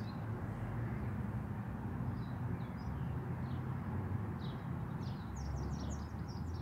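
Birds chirping faintly: scattered short high calls a couple of seconds in and a quick run of them near the end, over a steady low hum.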